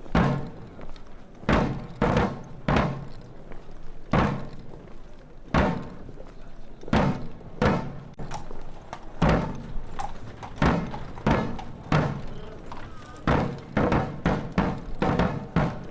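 Repeated sharp thuds, about one or two a second, each dying away quickly.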